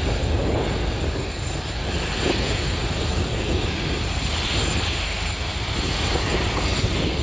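Large helicopter running on the ground before takeoff: a steady, loud turbine-and-rotor noise with a heavy low rumble.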